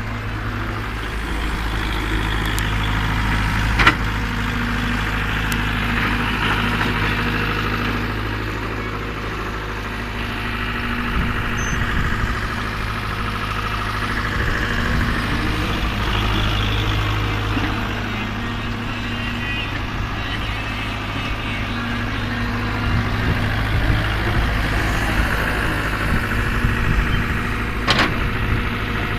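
Heavy diesel engine running steadily, with a sharp clank about four seconds in and another near the end.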